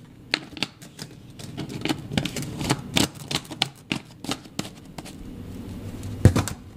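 A spoon clicking and scraping against a cup while instant coffee is spooned in, in quick irregular ticks, with one louder knock near the end.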